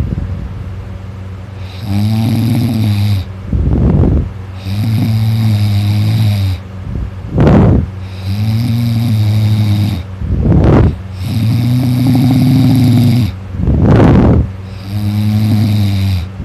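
A person snoring loudly in sleep, about five breaths in a steady rhythm of roughly one every three seconds. Each breath is a drawn-out, rattling snore of a second or more, followed by a short, sharp, noisy breath.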